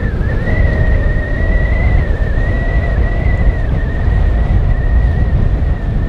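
Strong wind buffeting the microphone in a loud, constant low rumble, with a steady high whine that wavers slightly in pitch running over it.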